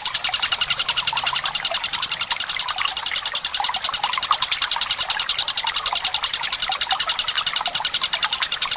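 Tengkek buto (a kingfisher) singing one long, fast rattling trill of about ten notes a second, with water trickling underneath.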